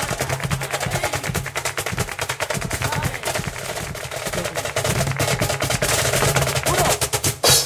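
Flamenco footwork (zapateado): heeled dance shoes striking the stage floor in a very fast, unbroken drumming run, with music faintly underneath. It ends in one loud stamp near the end, after which the sound drops away.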